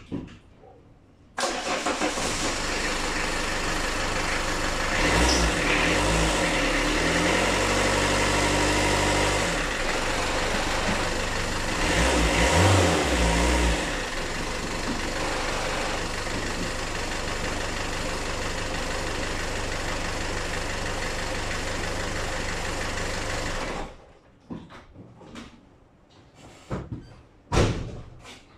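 Renault Kangoo's F8Q 1.9-litre four-cylinder diesel engine starting after an oil change, run briefly to fill the new oil filter. It catches about a second in and runs steadily, its revs rising and falling twice, then is switched off with a sudden stop; a few sharp knocks follow near the end.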